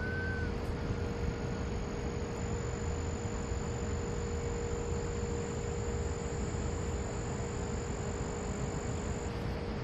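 Steady background noise with a low rumble and a constant hum, joined about two seconds in by a thin, high-pitched whine that stops shortly before the end; a single short chirp sounds at the very start.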